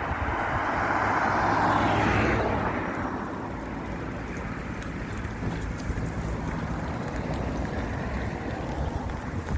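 A road vehicle passing by: a broad rushing noise with a low engine hum swells to its loudest about two seconds in, then fades away.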